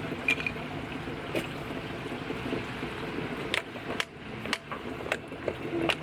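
Natural spring water running steadily into plastic jugs as they fill, with about seven short, sharp knocks and clicks scattered through it.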